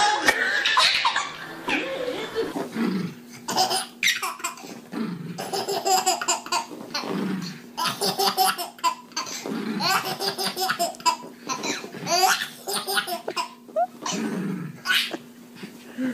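Baby laughing hard in repeated fits of belly laughter, burst after burst.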